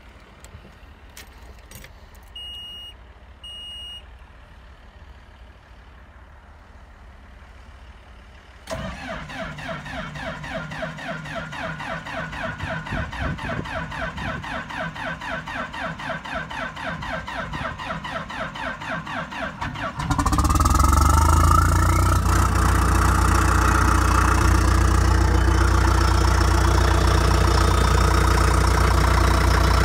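John Deere 450J crawler dozer's diesel engine cold-starting in freezing weather without starting fluid: two short beeps, then about eleven seconds of rhythmic cranking before the engine catches about twenty seconds in and settles into a steady, louder run, with a brief rising whine as it fires.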